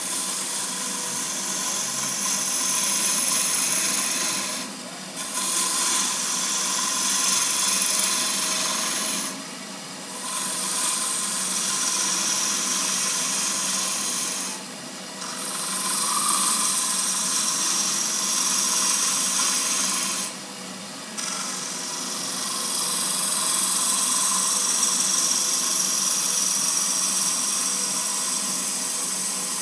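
Turning tool cutting inside a thin-walled wooden goblet on a running wood lathe: a steady hiss as long ribbon shavings peel off. The cut stops briefly four times, about every five seconds, leaving only the quieter sound of the lathe running.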